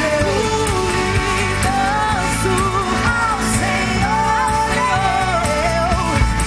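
Live gospel pop-rock band playing, with a single melodic lead line bending and gliding over a full backing of bass and drums.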